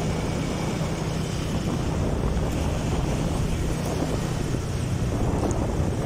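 Steady running noise of a moving road vehicle, a constant engine hum under road rumble, with some wind noise on the microphone.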